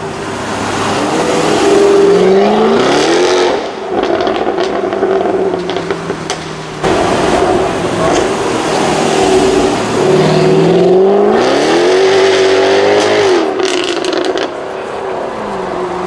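Jaguar F-Type R's supercharged V8 accelerating hard, its exhaust note climbing in pitch twice, about three seconds in and again around eleven seconds, over steadier running between.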